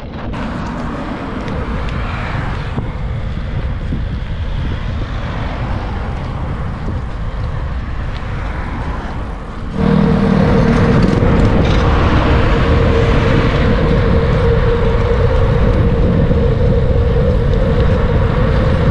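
Wind rushing over the microphone during a bike ride on a road, mixed with road and traffic noise. About halfway through the sound suddenly gets louder and a steady hum joins in.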